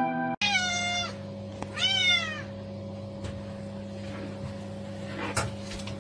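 Domestic cat meowing twice, short meows with falling pitch, over a steady low hum.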